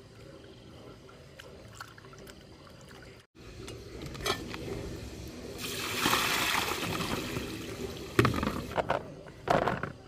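Water pouring, rising to a steady rush for a couple of seconds, followed by a few sharp knocks near the end.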